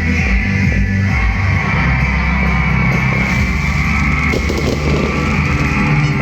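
Background rock music with drums and electric guitar at a steady, loud level.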